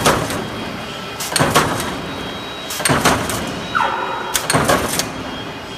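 Mechanical C-frame power press punching steel strip fed by a servo press feeder: a loud clanking stroke about every one and a half seconds, four in all, with a short whine just before the last.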